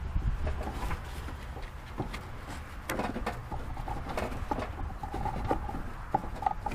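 Scattered light clicks, taps and knocks of tools and parts being handled during hands-on work, with a few brief squeaks near the end, over a steady low rumble.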